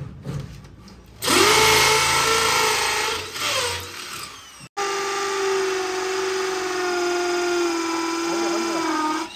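Electric power drill running at a steady pitch in two runs. The first starts about a second in and dies away around four seconds; the second, after a sudden break, lasts until near the end.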